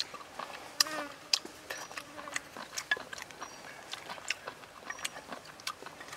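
Close-up mouth sounds of eating stir-fried squid: irregular wet clicks and smacks of chewing, several a second, with a short pitched sound about a second in.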